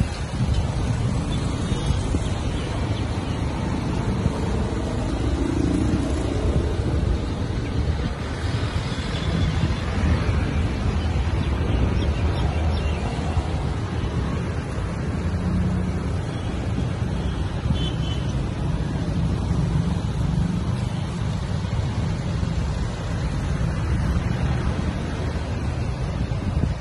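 Road traffic at a city intersection: motorcycles and cars passing, a steady low rumble of engines and tyres.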